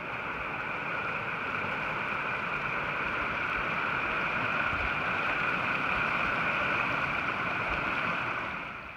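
Creek water rushing steadily, growing slowly louder, then falling away near the end.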